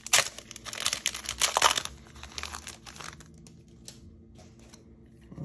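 Foil wrapper of an O-Pee-Chee Platinum hockey card pack crinkling and tearing as it is ripped open by hand, loudest in the first two seconds. It thins to a few faint rustles by about three seconds in.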